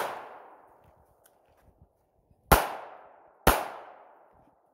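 Semi-automatic pistol firing two shots about a second apart, each echoing briefly as it fades. The tail of a shot fired just before is still fading at the start.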